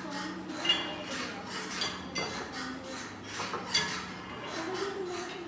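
Dishes and cutlery clinking in a kitchen, with a few sharp ringing clinks: one near the start, one about two seconds in and one near four seconds.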